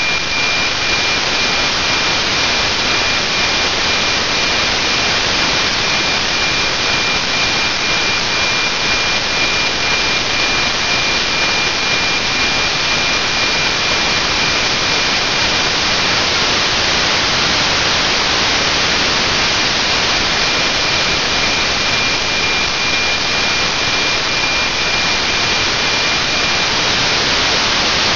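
FM receiver hiss from NOAA 19's APT weather-image downlink on 137.1 MHz, with the satellite low on the horizon near loss of signal. Under the steady static runs a thin high tone, the signal's 2,400 Hz carrier, which fades out near the end as the signal is lost.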